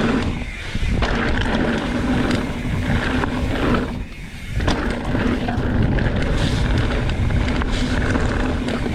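A mountain bike rolling fast down a dirt trail: wind rushing over the microphone and tyres rumbling, with a steady hum that breaks off briefly about half a second in and again about four seconds in.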